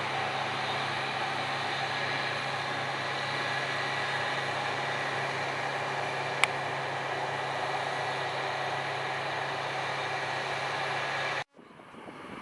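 Diesel harvest machinery running steadily, with one sharp click about halfway through. The machine sound cuts off suddenly near the end, leaving a quieter wind-like hiss.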